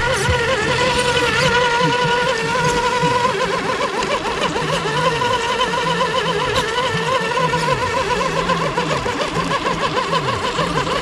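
Background music: a held synth-like tone that starts to waver a few seconds in, over evenly repeating falling bass notes.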